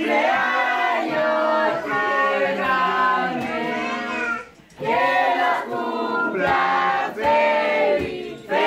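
A group of adults and children singing a birthday song together.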